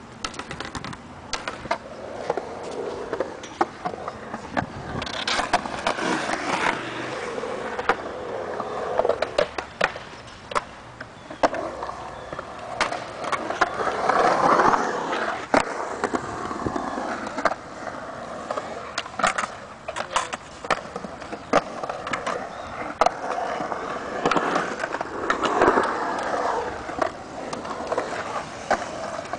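Skate wheels rolling over concrete ramps, swelling and fading as riders pass, about three times. Sharp clacks and scrapes are scattered throughout.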